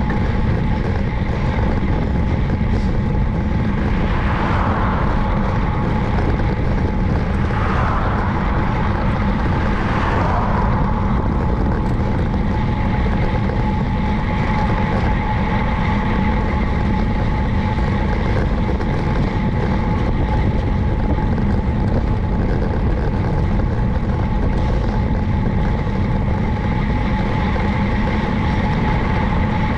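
Steady rush of wind and road noise from a bicycle ride, with a few brief rising swells in the first ten seconds. A steady high hum joins in at about eleven seconds.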